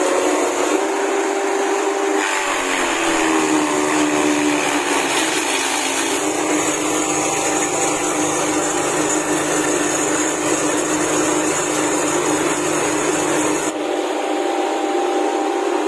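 Grass-and-branch chopper driven by a 6.5 HP petrol engine, running with a steady whirring drone. Its pitch sags a few seconds in, then holds steady.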